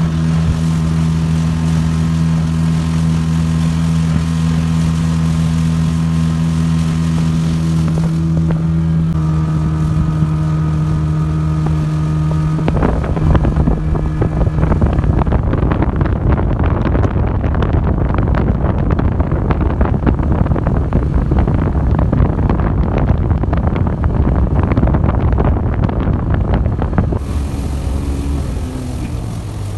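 Speedboat engine running at a steady hum, then about thirteen seconds in a loud rush of water and wind with rapid knocking of the hull on the waves takes over. Near the end the engine note comes back through and drops in pitch as the boat slows.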